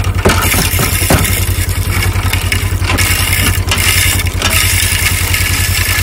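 A vehicle engine running steadily with a fast, even low pulse, under a steady hiss.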